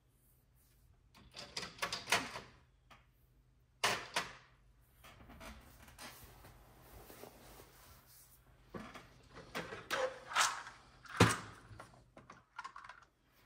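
Rummaging through nail polish bottles: small hard objects clicking and knocking together in several irregular bursts.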